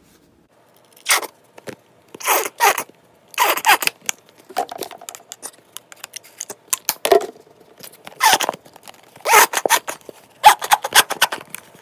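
Plastic squeeze bottles of body wash and soap being squeezed and handled while thick soap is poured into a plastic cup. It comes as bursts of quick crackling, clicking and scraping with short pauses between.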